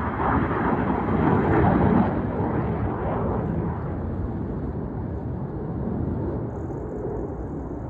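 Engine noise from several airplanes flying over in formation, a broad rumble that swells to its loudest about two seconds in and then slowly fades.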